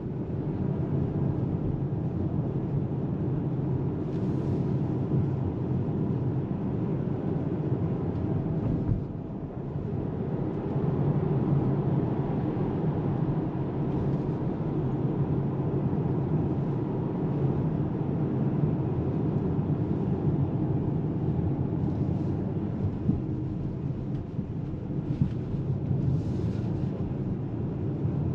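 Low, steady road and tyre noise heard inside the cabin of a Polestar 2 Long Range Dual Motor electric car on the move, with no engine note; it dips briefly about nine seconds in.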